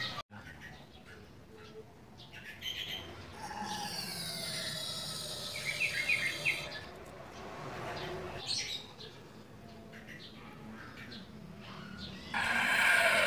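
Aerosol carburettor-cleaner can spraying through a thin extension straw into the spark-plug holes, a hiss carrying a slowly falling whistle. It comes in two bursts: a fainter one a few seconds in, and a loud one starting near the end.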